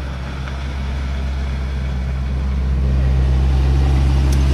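A safari vehicle's engine idling with a steady low hum, heard from inside the vehicle, growing a little louder over the few seconds.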